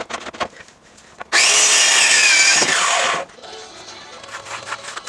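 An electric power tool starts suddenly about a second in and runs for about two seconds, then its whine falls in pitch as the motor winds down and stops.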